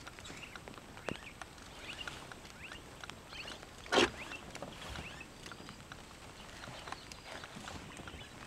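Riverside wetland ambience of faint, scattered chirping calls and small clicks, with one sharp, loud knock about four seconds in.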